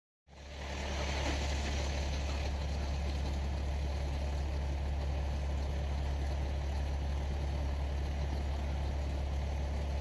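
Fire trucks idling at a roadside scene: a steady, low engine hum. It starts abruptly just after the beginning and then holds steady.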